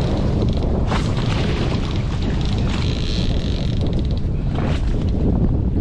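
Wind buffeting the microphone: a loud, steady low rumble, with a couple of brief rustling knocks about a second in and near the end.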